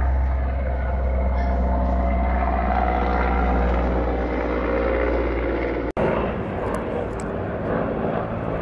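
Helicopter flying overhead, its rotor and engines a steady low drone. About six seconds in the sound cuts out for an instant and resumes with less low rumble.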